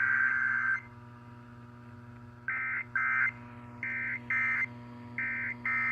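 Emergency Alert System digital data bursts broadcast during a radio station's EAS test: the end of one long burst, then six short bursts in three pairs, each a buzzy two-tone data signal, over a steady hum.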